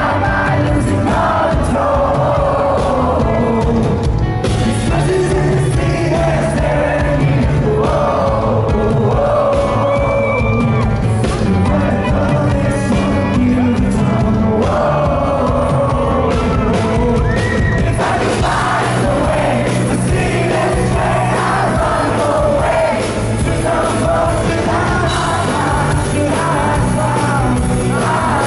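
Live pop-rock concert music: a male singer's lead vocal over the band, with the audience yelling and singing along, recorded from within the crowd.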